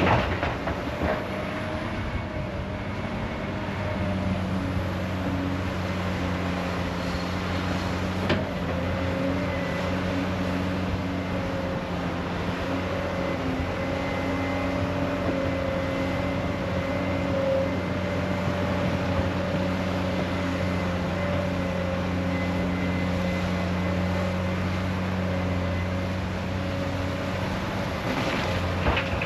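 Heavy diesel engine of construction machinery running steadily, with one sharp knock about eight seconds in.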